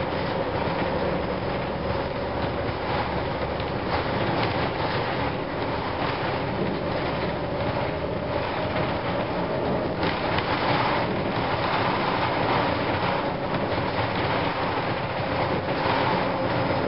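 2004 Gillig Phantom transit bus under way, heard from inside: the Cummins ISM diesel running with the Voith transmission's steady howl over road rumble and rattles.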